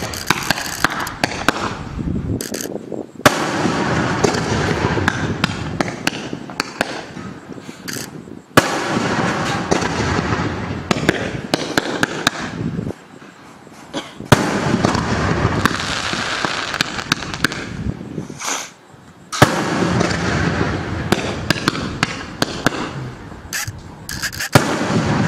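Aerial fireworks shells bursting in quick succession, with dense crackling and sharp bangs. The crackle falls away briefly three times and each time comes back with a loud bang.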